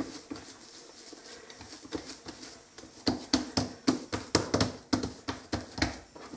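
Oiled hands patting and pressing soft kefir dough flat on a countertop into a round flatbread. Faint handling at first, then from about three seconds in a quick run of a dozen or so slaps, about four a second.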